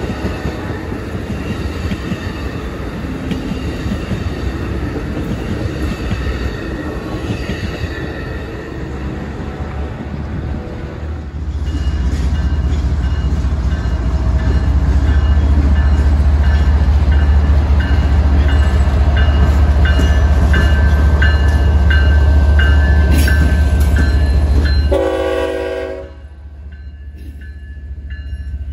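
Amtrak bilevel passenger cars rolling past, with steady wheel-on-rail noise. Then a BNSF diesel freight locomotive passes close by with a loud low engine rumble. A short horn blast sounds near the end, and intermodal flatcars carrying trailers roll by after it.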